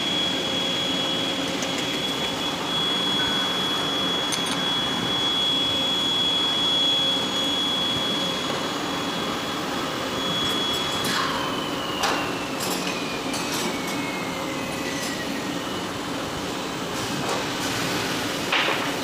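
Steady workshop machinery noise with a high whine that holds one pitch, then falls slowly in pitch from about 11 seconds in, as of a machine spinning down. Metal taps and knocks come in the second half, the loudest near the end, from a hammer striking the aluminium worm gearbox housing being dismantled.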